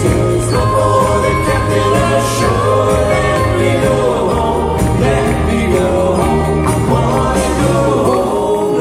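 Live band playing a pop song with drums, bass and group vocal harmonies, recorded from the audience. Right at the end the bass and drums drop away, leaving the voices.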